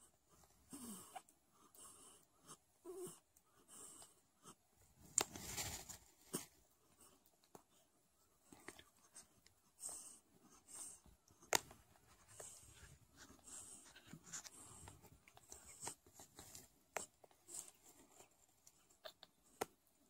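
Newborn Sphynx kittens suckling: faint, scattered wet clicks and snuffles, with a few sharper clicks and a soft rustle about five seconds in.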